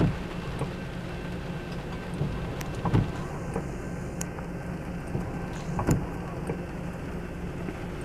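Inside a car's cabin in the rain: the windshield wiper sweeps about every three seconds, each pass a short thump, over a steady low rumble from the stopped car and the freight train passing the crossing.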